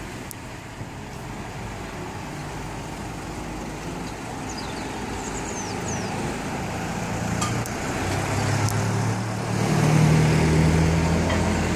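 Street traffic hum, then a car engine approaching and growing louder over the last few seconds as the car drives past close by.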